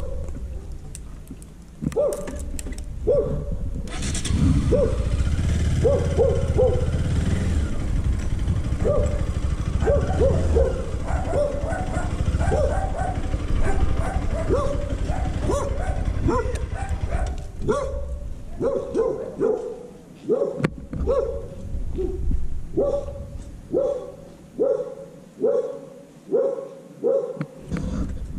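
A dog barking over and over, the barks coming steadily about once a second in the later part. Underneath runs the low rumble of a motorcycle engine, which drops away near the end.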